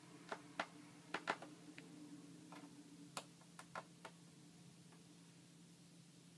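About a dozen small, sharp clicks and taps at irregular intervals over the first four seconds, then only a faint steady hum.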